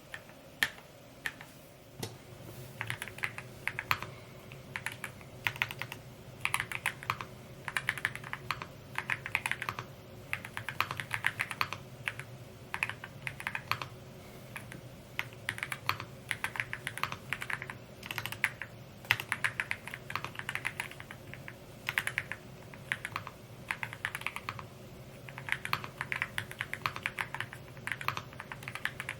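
Typing on a Rainy75 mechanical keyboard: rapid runs of key strokes in bursts, with short pauses between words.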